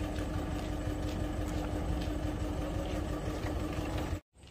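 An engine running steadily with a constant hum, cut off abruptly about four seconds in.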